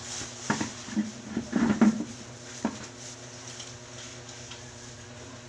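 Plastic household waste being handled and tossed onto a pile during trash sorting: a few quick clattering knocks and rustles, the busiest cluster about two seconds in.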